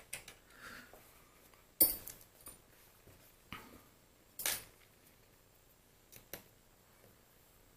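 A few scattered metallic clicks and clinks as small lathe apron parts are handled and pushed into place, the sharpest about two seconds in.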